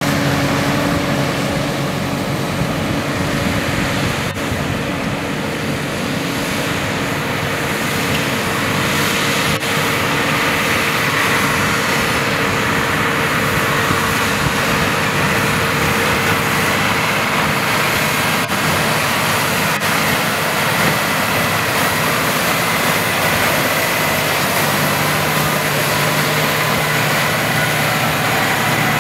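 Valtra T203 tractor's diesel engine running under load, driving a Krone Big Pack 1270 large square baler as it picks up and presses silage: a steady mechanical drone. A thin high whine joins about a third of the way in.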